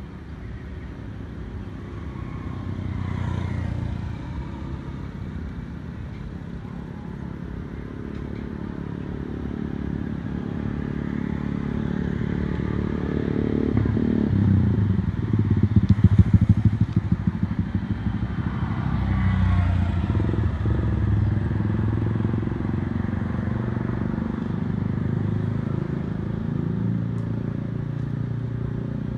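Motor vehicle engines passing, swelling and fading several times, with the loudest and closest pass about halfway through.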